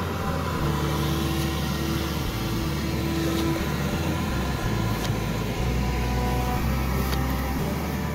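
Road traffic running steadily, a low rumble that rises and falls in level, with a few sharp clicks over it.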